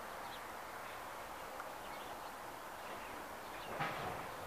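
Steady outdoor background noise with faint, scattered bird chirps, and a single brief thump near the end.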